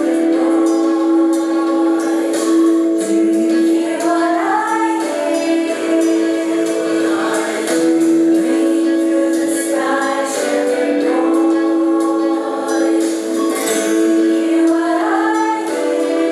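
Small mixed choir of women's and men's voices singing a Christmas carol in long held phrases.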